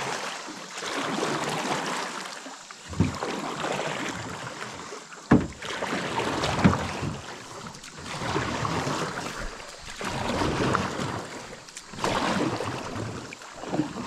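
Canoe paddled through a shallow creek riffle: paddle strokes and splashing, rushing water that swells and fades every second or two, with a few sharp knocks about three, five and seven seconds in.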